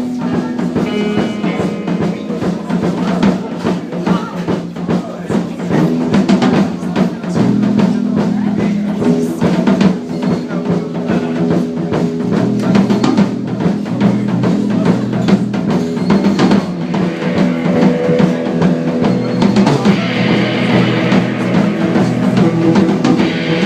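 Live rock band playing loudly, with a drum kit keeping a busy beat of bass drum and snare over held low notes from bass and guitar.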